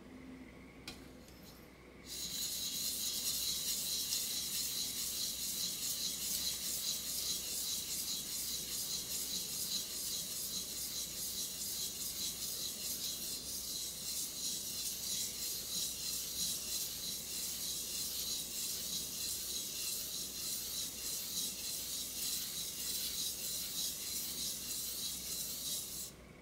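Steel kitchen-knife blade being sharpened on a wet whetstone: a steady, hissy scraping of rapid back-and-forth strokes that starts about two seconds in and stops just before the end. The edge is being worked from the tip toward the heel.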